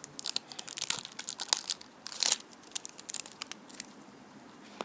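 Crinkly plastic wrapper being torn and peeled off a plastic surprise egg: a dense run of crackles for the first couple of seconds, loudest about two seconds in, then a few sparser crinkles.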